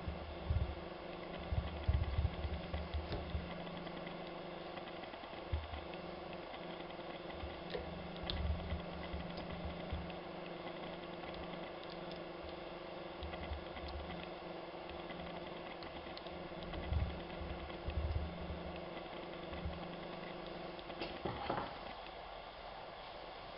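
Hand tools working on a brake caliper: irregular metal clicks and knocks over a steady hum.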